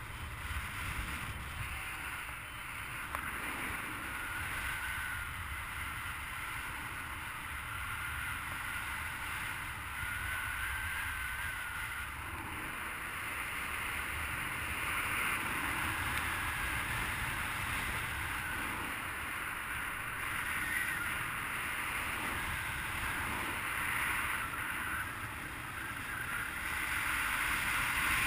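Steady rushing of air over the camera on a paraglider in flight.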